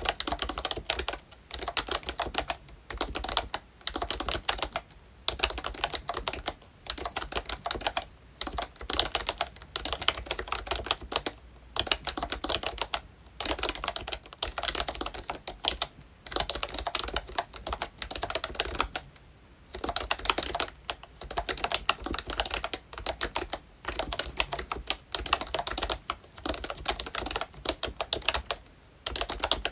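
Fast typing on a ROYCHE Disney Mickey Mouse retro membrane keyboard with round typewriter-style keycaps: rapid key clacks in runs of a second or two, broken by short pauses.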